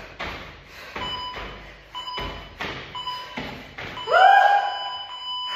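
Regular thuds of feet landing on the floor during a jumping exercise, about two to three a second, with an interval timer giving short beeps a second apart and then a long beep near the end that signals the end of the work interval. A loud call from the exerciser comes at about the same time as the long beep.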